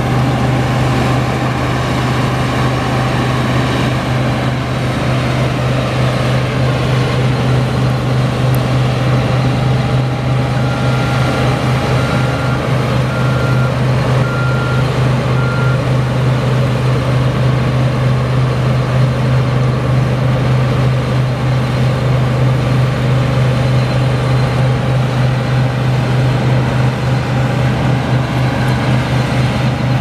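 New Holland TX65 combine harvester working in wheat: a steady, loud diesel engine drone with a steady whine over it. About a third of the way in, five short high beeps sound about a second apart.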